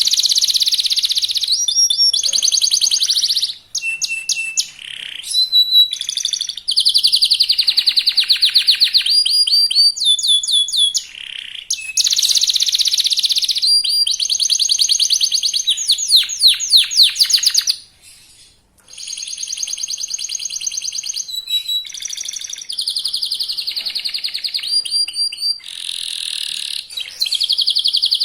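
Young local canary singing in full song: fast, rolling trills strung phrase after phrase, with a brief break about two-thirds of the way through.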